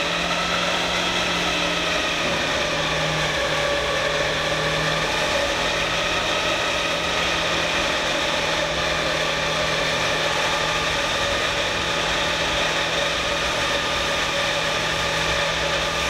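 New Holland disc mower cutterbar spun up by a test-stand motor, its row of cutting discs turning at speed with a loud, steady mechanical whine of several level pitches. This is the factory run-in test, run so that the bearings' heat can be checked.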